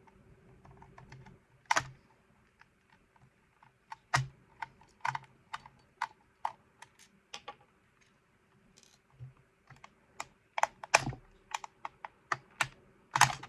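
Irregular sharp clicks and taps of a small screwdriver, screws and a plastic battery cover as the cover is unscrewed and taken off a toy remote-control unit.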